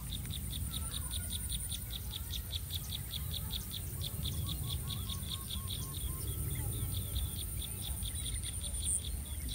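Forest ambience: a rapid, even chirping at about six pulses a second, over a steady high-pitched whine and a low rumble.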